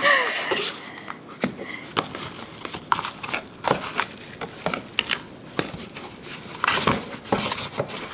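Paper and plastic packaging crinkling and rustling as a cardboard box of gel polish bottles is unpacked by hand, with many short irregular crackles and light taps.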